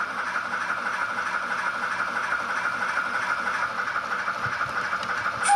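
A Zimo sound decoder in a Bachmann City of Truro model locomotive plays steam-engine running sounds through its small speaker while the loco runs on a rolling road. It is a steady hissing steam sound, with a brief sharp sound near the end.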